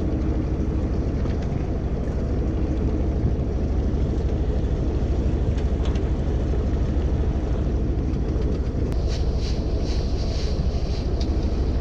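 Fishing boat's engine idling steadily with a low, even hum, with a short stretch of light scratchy noise about nine seconds in.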